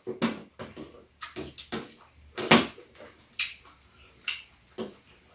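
Eating at a table: irregular short clicks and taps of a spoon and chopsticks against bowls, about ten in all, the loudest about two and a half seconds in.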